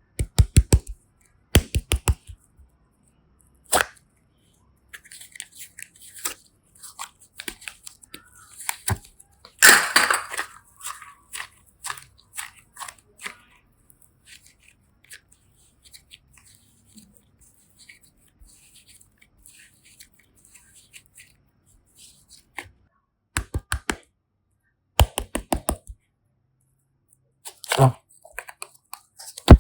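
Close-up crafting sounds of clay and slime being handled: clusters of sharp clicks, crackles and small tearing sounds with quiet gaps between, loudest about ten seconds in.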